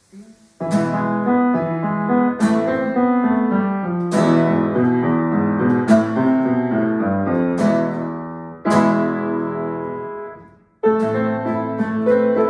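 Grand piano being played: chords struck about every one and a half to two seconds and left to ring, with a melody over them. About ten seconds in, the sound dies away to silence for half a second, then the playing starts again.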